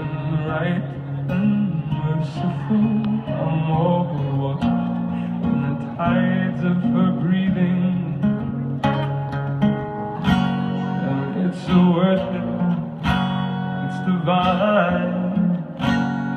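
Live song on solo acoustic guitar, with a singing voice over the guitar.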